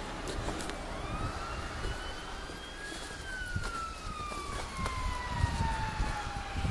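Emergency vehicle siren wailing: its pitch climbs about a second in, then falls slowly for several seconds, and turns sharply upward again at the very end, over a low rumble.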